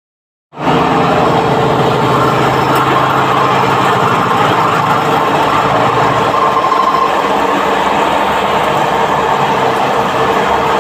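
CNC machine running its program while machining a part: a steady, loud mechanical running noise with a constant hum. The sound drops out for about half a second at the very start.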